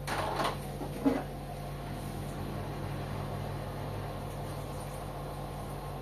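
Indesit front-loading washing machine mid-wash, its drum turning the load: a steady motor hum, a short swish of tumbling laundry at the start and a single thud about a second in as the load drops in the drum.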